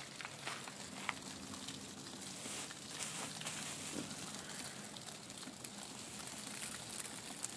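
Hailstones crunching and clicking as a hand scoops up a pile of them from the ground, over a steady hiss, with a sharp click about a second in.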